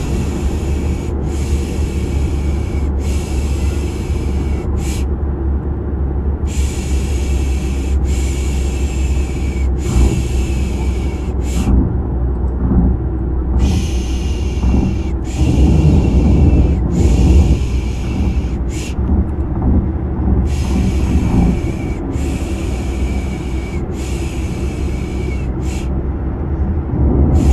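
Steady low drone of a car engine and road noise with a person's rhythmic 'shh' shushing layered over it, three long shushes and a short one, repeating about every seven seconds. It is a baby-soothing sleep sound.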